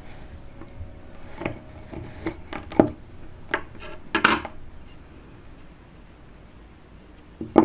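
Scissors snipping jute twine, and a twine-wrapped metal piece clicking and tapping against a wooden tabletop: a series of sharp separate clicks, the loudest about four seconds in, and one more near the end.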